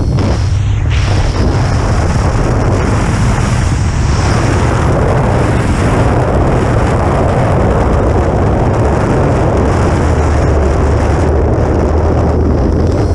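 Loud, steady wind buffeting on the microphone of a wingtip-mounted action camera on a model airplane, a heavy low rumble with a thin steady high whine over it.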